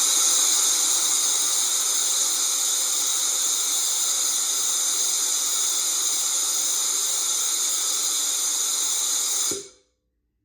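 Solenoid auto-drain valve on a scroll air compressor's tank opening and blowing compressed air and moisture out of the tank: a loud, steady hiss that cuts off suddenly near the end as the valve closes.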